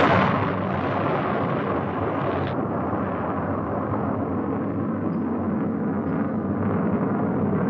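Rocket blast and rumble: a sudden loud burst at the start, then a steady, noisy roar.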